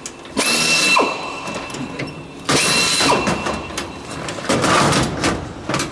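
Pneumatic rivet gun hammering rivets into the aluminium skin of a Lancaster fuselage, in three short bursts about two seconds apart.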